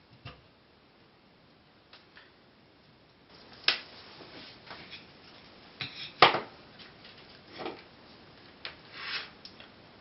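Scattered clicks and light knocks of small hand tools and wires being handled and set down on a work mat, the sharpest a little past the middle.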